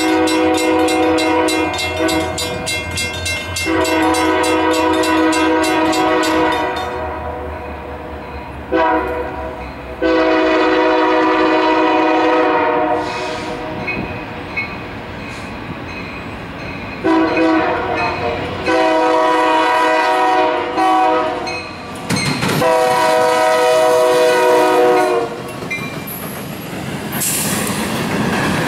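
Horn of a Union Pacific EMD diesel locomotive leading a freight train, blown for a grade crossing: two long blasts, a short one and a long one, then another series of long blasts. Near the end the locomotives pass close by with a rumble and the clatter of wheels on the rails.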